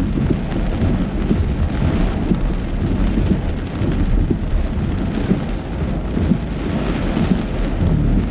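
Heavy thunderstorm rain pelting a car's roof and windshield, heard from inside the moving car, over a steady low rumble.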